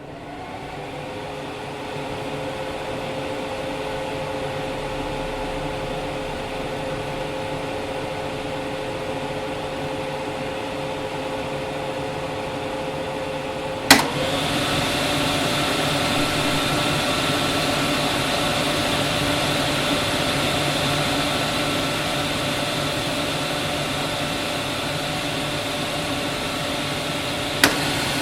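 Kitchen range hood blower running with a steady whir and hum, spinning up over the first couple of seconds. About halfway through a click is heard and the fan steps up to a higher, louder speed. Another click comes near the end.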